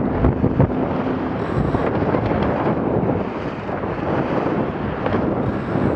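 Wind buffeting the microphone and water rushing along the hull of an E-scow sailboat heeled over and moving at about 10 knots, with a couple of brief thumps in the first second.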